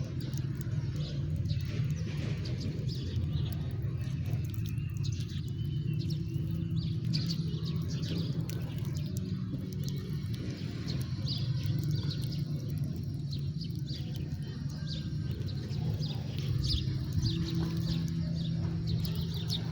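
House sparrows chirping, many short chirps in quick, irregular succession, over a steady low rumble.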